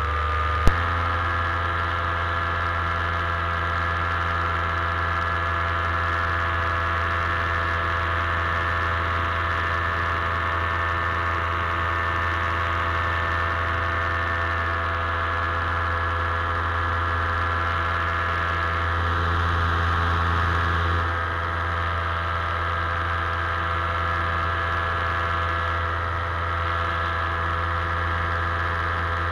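Paramotor engine and propeller running at a steady drone, a little louder for a couple of seconds around twenty seconds in before easing back. A single sharp click comes just under a second in.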